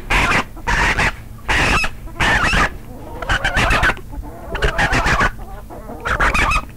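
Chickens clucking and squawking in a run of short, rapid calls, thickest in the first few seconds and sparser after.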